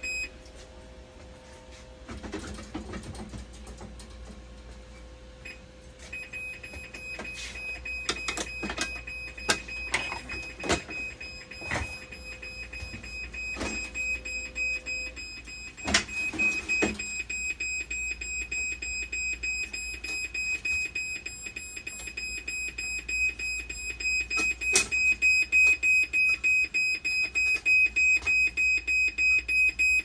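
Dialysis machine alarm sounding a steady high beep tone, joined in the middle by sharp clicks and knocks of handling. Near the end, a regular pulsing of about two to three beats a second grows louder.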